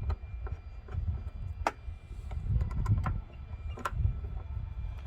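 Scattered sharp metallic clicks and taps of tools and bolts as hood latch bolts are fitted, over a steady low rumble.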